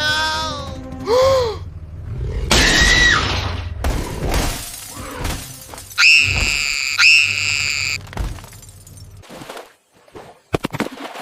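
A string of cartoon sound effects: short pitched swoops, a loud noisy crash, then two identical bright pitched tones about a second apart, and a few sharp clicks near the end.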